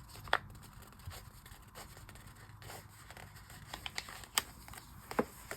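Hands handling sticker sheets and journal paper: light rustling and scraping with a few sharp ticks, the clearest one shortly after the start and another about four seconds in.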